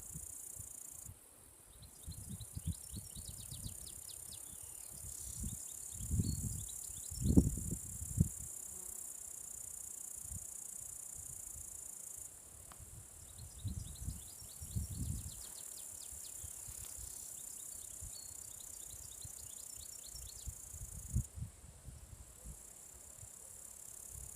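A steady high-pitched chorus of insects shrilling in summer grass, with two runs of rapid chirping, one early and one mid-way. Irregular low rumbles on the microphone come and go, the loudest about seven seconds in.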